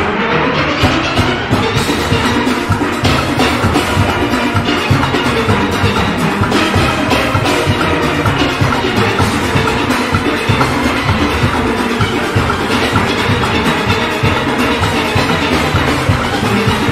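A full steel orchestra playing: many steelpans ringing out a fast tune together over a steady drum and percussion beat.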